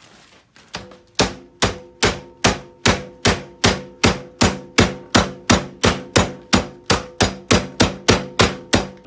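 Wooden rolling pin pounding a bagged chicken breast on a cutting board, flattening the thick meat to tenderize it. The even strikes start about a second in and come about two and a half times a second, each with a short ringing note.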